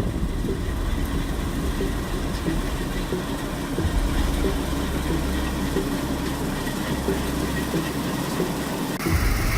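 Claas Lexion combine harvester running: a steady engine drone with a regular clatter from its machinery. The sound changes abruptly near the end.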